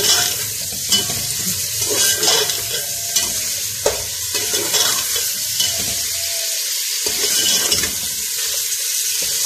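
Mutton pieces sizzling as they are browned in hot oil in a metal pot, the first bhuna stage before the spices go in. A metal spoon stirs them, scraping and knocking against the pot every second or so.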